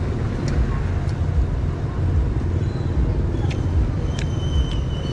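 Steady low rumble of road traffic passing close by, with a few light clicks scattered through it.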